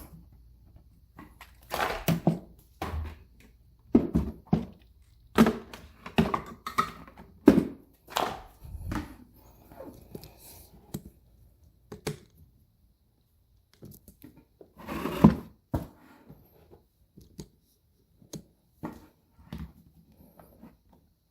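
Plastic toy being handled: irregular clicks and knocks with a few short rustling bursts, the longest about two-thirds of the way through.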